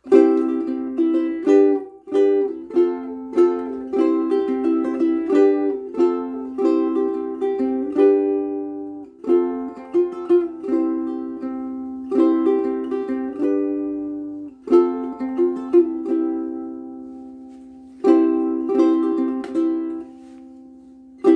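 Blue Wing ukulele strung with worn-out, frayed Martin M600 strings, played in a plucked tune of chords and melody notes, with phrases that end on notes left to ring out.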